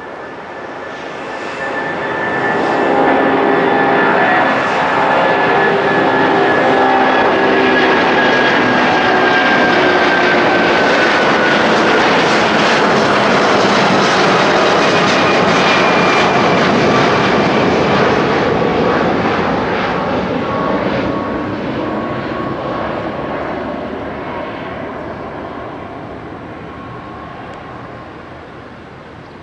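Airbus A330-300's twin Rolls-Royce Trent 700 turbofans at takeoff thrust as the jet climbs out past. The jet noise swells over the first few seconds and stays loud. A high whine glides downward in pitch as the aircraft passes, then the noise fades away in the last third.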